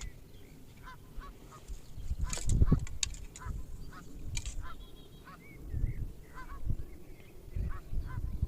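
Geese honking repeatedly in short calls, over several low thuds and rustles, the loudest about two and a half seconds in.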